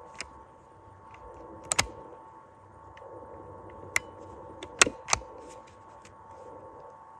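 A few sharp mechanical clicks, two close together about two seconds in and the loudest pair around five seconds in, from a hunting gun being handled and readied just before the shot, over a faint steady hum.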